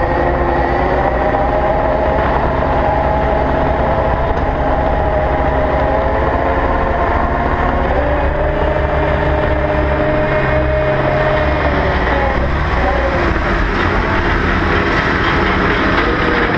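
Caterpillar 299D XHP compact track loader's diesel engine running under load as the machine drives on its rubber tracks, heard up close from a camera mounted on the machine. A steady low rumble carries a whine whose pitch drifts and dips about halfway through and again a few seconds later.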